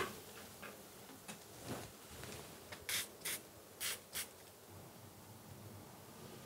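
Hand-pump spray bottle misting a porcelain paint palette: four quick spritzes in about a second and a half. A sharp click right at the start is the loudest sound.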